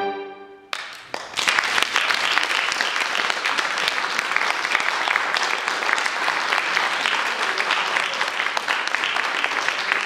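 The last chord of a saxophone quartet dies away in the hall's reverberation, then audience applause breaks out about a second in and carries on steadily.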